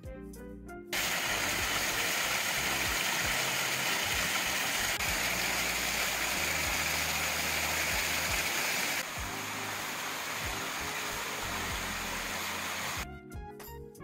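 Mountain stream rushing over rock slabs and small cascades: a steady, loud rush of water that drops to a quieter rush about two thirds of the way through. Background music plays briefly at the start and comes back near the end.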